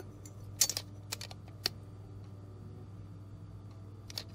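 Small hard parts being handled: a few light clicks and taps, a quick cluster about a second in and two more near the end, over a steady low hum.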